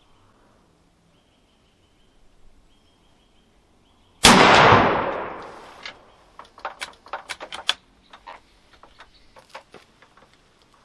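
A single shot from a Swedish 1851 Kammerlader percussion breech-loading rifle firing black powder: one sharp report about four seconds in, with a long echoing tail that fades over about a second and a half. After it comes a run of sharp clicks and knocks.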